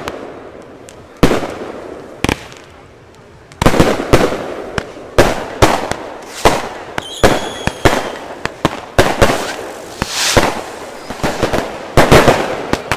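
Fireworks going off: two separate bangs, then from about three and a half seconds in a rapid, irregular run of loud bangs. A brief whistle sounds about seven seconds in.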